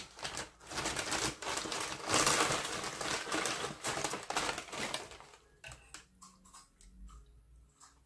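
Close-miked eating noise: a rapid run of crackly clicks and crinkles as the sandwich and its paper wrapping are handled and bitten. It is dense for about five seconds, then thins to scattered soft clicks.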